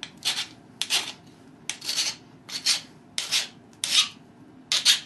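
Metal file rasping across the copper tip of a pressure flaker in about seven short, evenly spaced strokes, reshaping the worn tip.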